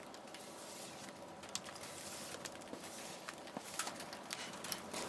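Faint, irregular crackles and pops of a wood fire burning in a camping wood stove, over a low steady hiss.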